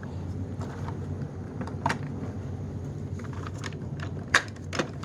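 Plastic parts of a Hoover SteamVac Widepath carpet cleaner clicking and knocking as a piece is twisted and pushed into place. There are scattered clicks, the sharpest about four seconds in.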